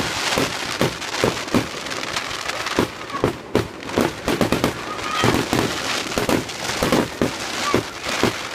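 Aerial fireworks going off in a rapid, dense barrage: booms several times a second with crackling between them and a few faint whistles.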